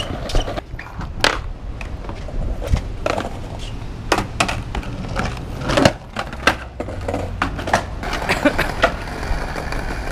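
Skateboards rolling over paving stones: a steady low wheel rumble with many sharp clacks and knocks from the boards, the loudest about six seconds in.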